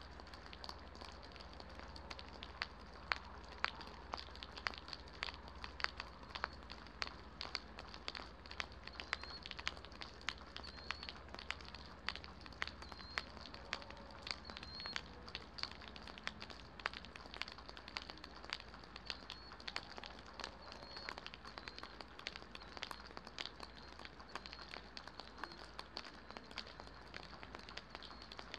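Rain falling, with many individual drops tapping irregularly and unevenly close by.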